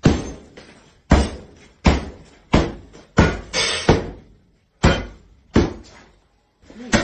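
Sledgehammer blows smashing into newly built construction work: about eight heavy strikes, roughly one every three-quarters of a second, with a slightly longer pause before the last one.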